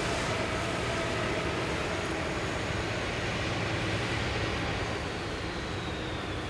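Distant rumble of an approaching freight train led by two GE C40-8 diesel locomotives: a steady low drone that holds level.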